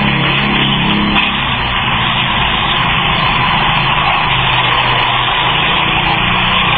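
A motor vehicle's engine running under steady road and wind noise. A low engine note is clear for about the first second and a half, then fades into the noise.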